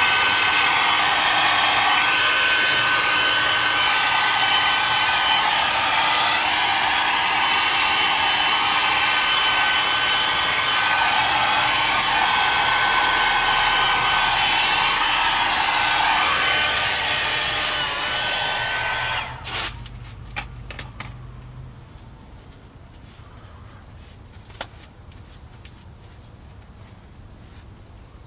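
Hand-held blow dryer running steadily with a faint motor whine, switched off about two-thirds of the way through. A few clicks follow, and then crickets chirping steadily.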